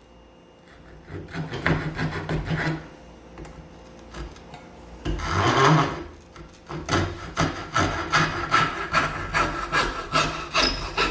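Hand saw cutting relief kerfs into a wooden blank held in a vise, in rhythmic back-and-forth strokes. There is a short run of strokes, a pause, then steady sawing at about two strokes a second from about seven seconds in.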